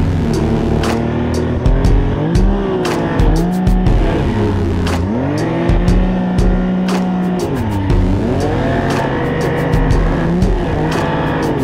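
Snowmobile engine revving up and down as the throttle is worked in deep snow, its pitch rising and falling repeatedly, with frequent short sharp clicks and knocks.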